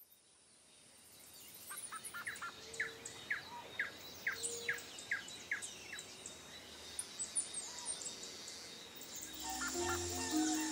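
Forest birdsong fading in: several birds calling, one repeating a run of short, clear notes. Background music comes in near the end.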